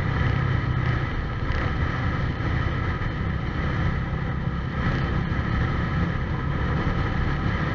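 Motorcycle engine running at a steady cruising speed, with wind and road rumble on the bike-mounted camera's microphone.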